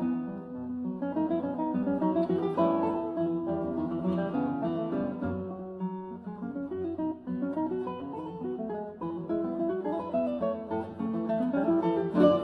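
Background music played on acoustic guitar, a continuous run of plucked notes and chords.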